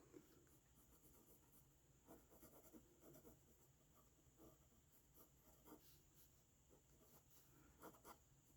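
Faint, short scratching strokes of a drawing tool, sketching lines.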